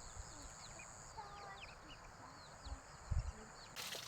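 Birds chirping, many short high peeps in quick succession, over a steady high-pitched hum. There is a low thump a little before three seconds in and a louder one just after.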